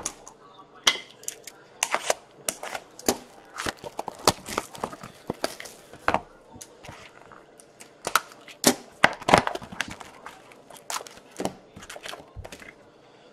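Plastic wrapping crinkling and tearing in a run of sharp crackles and rips as a sealed box of hockey cards is unwrapped and its packs are torn open.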